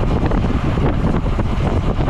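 Wind rushing across the microphone of a cyclist riding a road bike at speed: a loud, steady rumble with no breaks.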